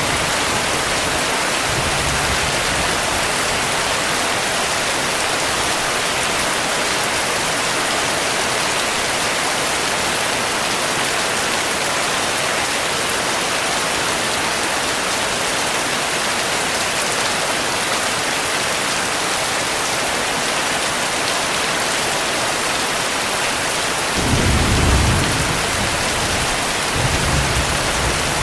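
Heavy rain pouring steadily. Low rumbles of thunder sound about two seconds in and again near the end, the strongest of them near the end.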